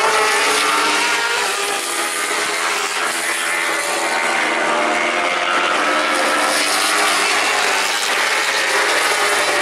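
Several racing superbike engines at high revs, their overlapping engine notes making a dense, steady drone.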